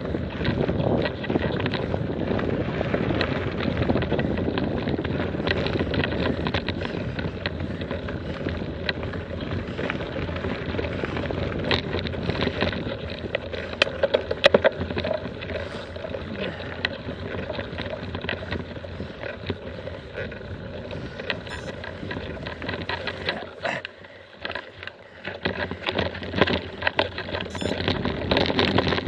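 Wind noise on the microphone and the rumble and rattle of a mountain bike rolling over a gravel track, with sharp clicks and knocks from the bike over rough ground. The low wind rumble thins out in the second half, and near the end it goes briefly quieter before a run of scattered knocks and rattles.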